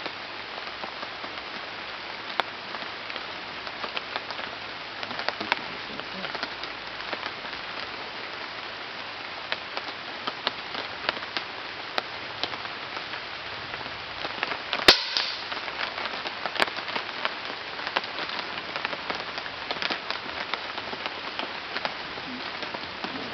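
A single air rifle shot about fifteen seconds in, a sharp crack with a short ring after it, followed by a fainter click under two seconds later, over a steady hiss scattered with small ticks.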